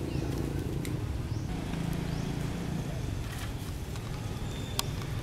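An engine running steadily in the background, with a sharp click near the end.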